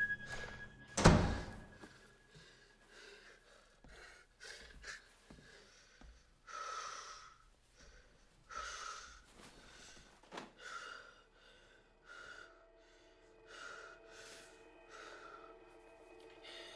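A single loud thud about a second in, then a boy's short, sharp breaths, about eight of them, roughly a second apart, as he throws punches.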